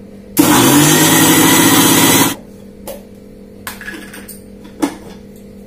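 Electric mixer grinder grinding dry semolina in its steel jar for about two seconds, its motor spinning up with a rising whine, then switched off. A few clicks and knocks follow as the jar's lid is taken off.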